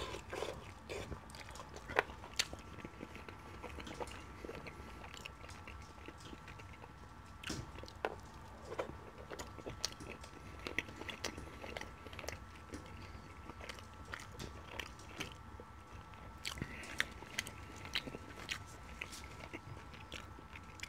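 Close-miked chewing and mouth sounds of a man eating curry chicken with his fingers: soft, irregular smacks and small clicks. A faint steady high hum sits underneath.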